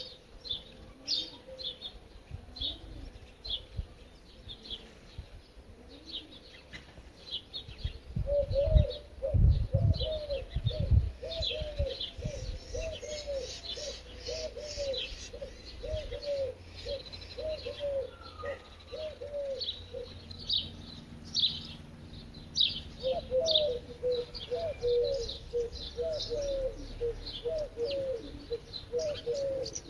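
Small birds chirping, joined about a quarter of the way in, and again near the end, by a run of low cooing notes, each a short rise and fall, repeated about twice a second. A few low thumps come about a third of the way in.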